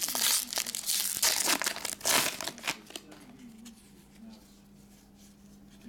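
Plastic wrapper of a Donruss soccer trading-card pack crinkling and tearing as it is opened. It is loudest in the first two seconds, then dies down to light rustling.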